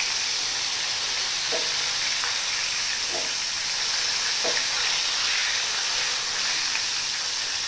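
Flour-coated Bombay duck (bombil) fish frying in hot oil in a pan: a steady sizzle. A spatula touches the pan briefly three times as the fish is moved.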